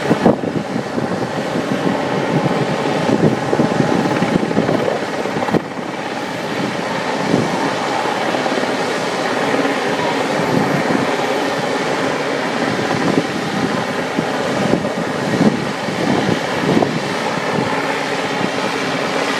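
Westland Sea King helicopter hovering, its rotor and twin turboshaft engines running steadily.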